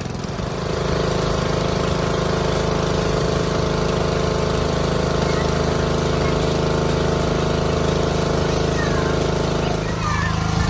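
Pressure washer running steadily, its small engine drone mixed with the hiss of the spray; the sound dips and changes briefly near the end.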